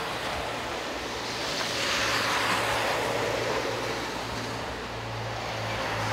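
Outdoor traffic noise: a passing vehicle's road noise swells to its loudest about two seconds in and slowly fades, over a steady low hum.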